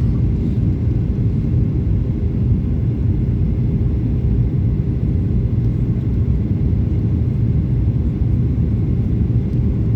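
Airliner cabin noise: a steady, loud low rumble from the aircraft, heard from inside the cabin.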